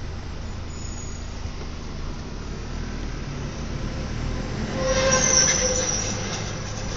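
Steady road and engine rumble inside a moving car. About five seconds in, an oncoming semi-truck passes close by, its noise swelling with a whine, then fading.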